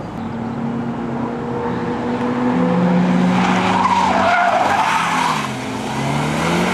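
A small hatchback's engine pulling hard as the car comes round a bend and passes close, with its tyres squealing in the middle. Near the end the engine note dips and then climbs again.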